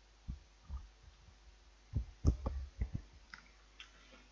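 Irregular clicks and soft knocks of hands handling the microphone, starting a moment in and growing busier from about two seconds in.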